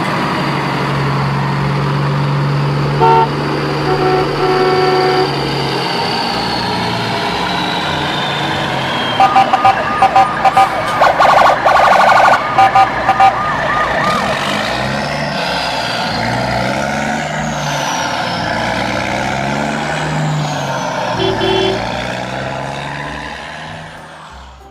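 A layered mix of vehicle siren and horn sounds: sliding siren tones falling in pitch over a steady low hum, short horn toots, and a run of rapid beeps in the middle, fading out near the end.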